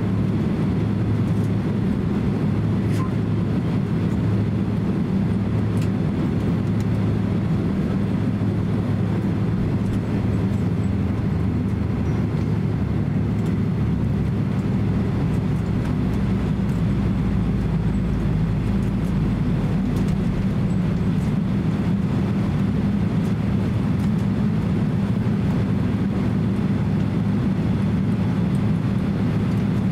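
Inside the cabin of a Boeing 767-300 taxiing on the ground: a steady low hum from the jet engines at idle, with a deeper rumble that swells for a few seconds near the middle.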